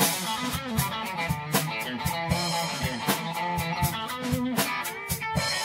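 Blues played on a Stratocaster-style electric guitar over a drum kit: single-note lead lines with bent and wavering notes, the drums keeping time underneath.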